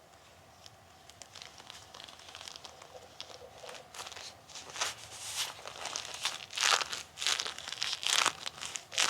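Bilpearl rubber gloves rubbing against each other: faint irregular scratching at first, then from about halfway through louder, quicker rubbing strokes.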